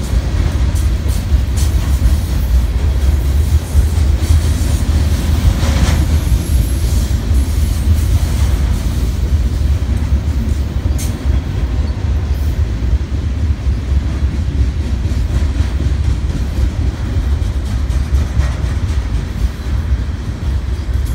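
Steady low rumble and drone beside a double-stack intermodal freight train standing on the track, with a couple of faint clanks about six and eleven seconds in.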